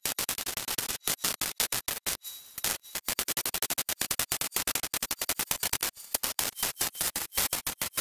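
Arc welding on a steel oil drum: a loud, fast, irregular crackle with many short breaks in the arc.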